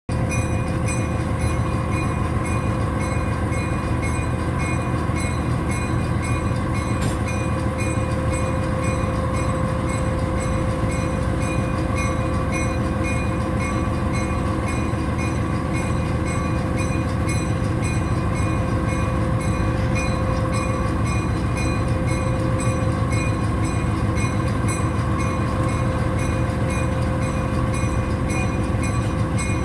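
Diesel-electric locomotive engine running steadily, heard from inside the cab as the locomotive rolls slowly along the track. It is a loud, even drone with a steady whine that fades about two-thirds of the way through.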